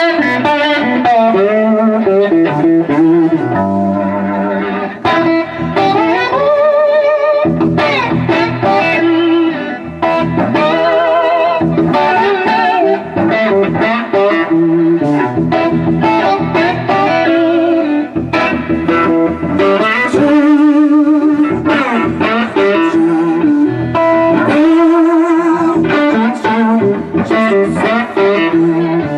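Background music: electric guitar playing a bluesy melody with bent, wavering notes over a steady accompaniment.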